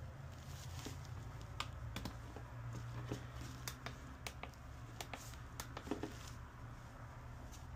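Scattered light clicks from the buttons of a bench component tester being pressed, a dozen or so at uneven intervals, over a low steady hum.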